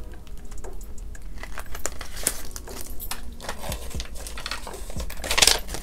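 Paper banknotes and a clear plastic binder pouch being handled, crinkling and rustling with many small clicks. There is a louder rustle near the end.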